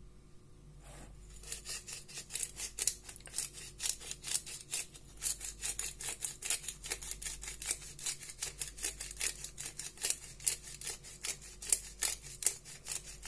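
Hand-held spice mill being twisted to grind seasoning, a rapid rasping click about four times a second that starts about a second in.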